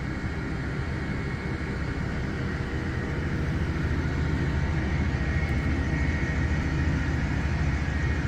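Diesel pickup truck engine running with a steady low rumble, growing a little louder a few seconds in.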